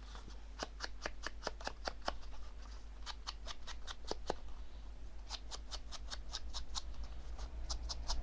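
Quick runs of light clicking taps, several a second with short pauses between runs: a walnut stain dauber being dabbed along the edges of a card.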